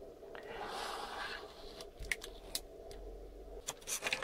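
Handling noise from an e-bike lithium-ion battery pack and its wired BMS board being moved and set down on a workbench: a rustle followed by several light, sharp clicks and taps.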